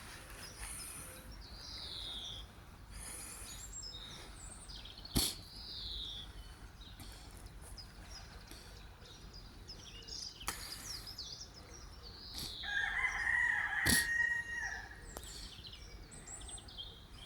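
A rooster crows once, a call of about two and a half seconds starting near the thirteen-second mark, over small birds chirping. Two sharp clicks, one about five seconds in and one near the end of the crow.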